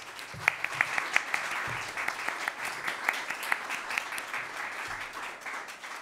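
Audience applauding, the clapping strongest in the first few seconds and slowly dying away.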